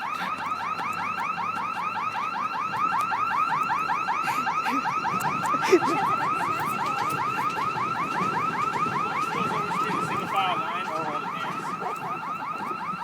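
Electronic fire alarm sounding for a fire drill: a fast sweeping tone that repeats several times a second without a break. A single sharp click comes about six seconds in.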